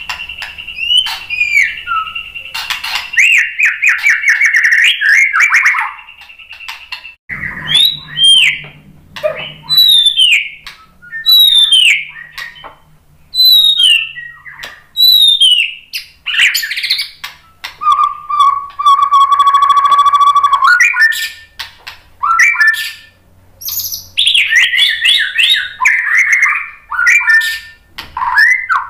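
White-rumped shama singing a loud, varied song: rapid trills, a run of short down-slurred whistles, and a buzzy passage with fast pulsed notes about two-thirds through.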